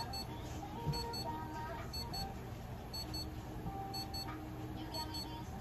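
An electronic device giving a short, high-pitched double beep about once a second, over soft background music and a low steady hum.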